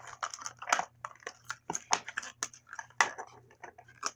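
Plastic toy packaging crackling and crinkling as it is torn open by hand, in quick irregular snaps that thin out near the end.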